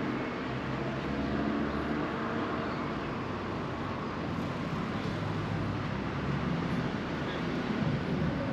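Steady road traffic noise, with vehicles running past.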